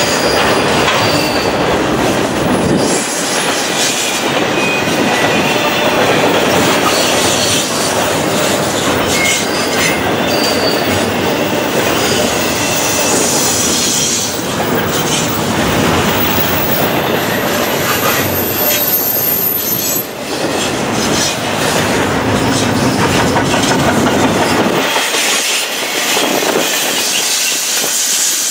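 Loaded double-stack intermodal container cars rolling past at speed: a loud, steady noise of steel wheels on the rails with clatter and brief, thin wheel squeals.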